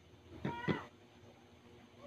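A cat gives one short meow about half a second in.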